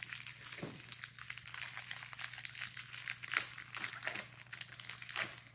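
Foil Pokémon booster pack wrapper crinkling and crackling in the hands as it is torn open and the cards are pulled out, in many small irregular crackles.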